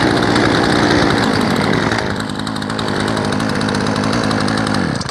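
Two two-stroke chainsaws, a Chinese 3800 saw and a Husqvarna, idling together with a steady, fast engine buzz. The sound dips slightly about two seconds in.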